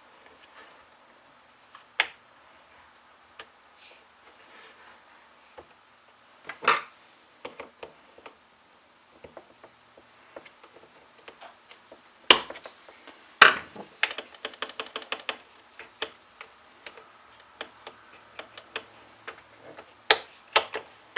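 Small clicks, taps and knocks of chainsaw parts being handled and fitted together during reassembly, with two sharper knocks about twelve and thirteen seconds in and a quick rattle of clicks just after.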